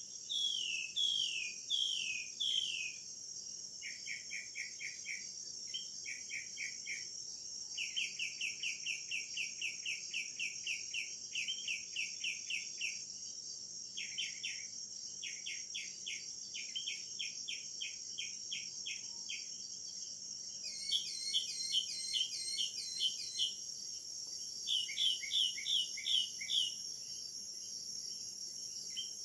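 Rainforest animal chorus: a steady high insect drone with repeated series of short chirping calls and rapid trills laid over it. The calls come in bursts of a few seconds each, with a few falling notes at the start and louder two-part chirps in the last third.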